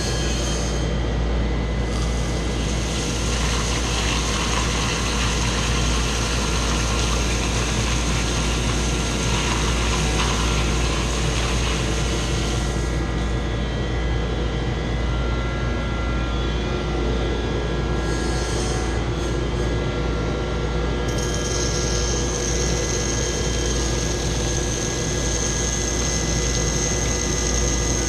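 York chiller plant running with its chilled-water pump circulating water: a steady machine drone and hum. A hissing rush joins in about two seconds in and lasts about ten seconds, and a high whine sets in past the two-thirds mark.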